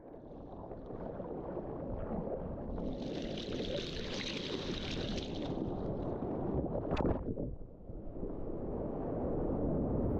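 Wind rumbling on the microphone over rushing water, with a surge of hissing water washing through from about three to six seconds in and a brief knock about seven seconds in.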